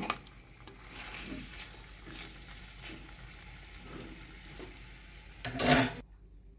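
Beef and bell peppers sizzling in an old metal pot while a metal spoon stirs and scrapes through them, with a louder stroke near the end; the sound then cuts off suddenly.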